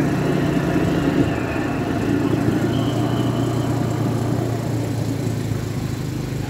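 Engine of a motorodillo rail motor car running steadily under way, its pitch dropping a little about a second in.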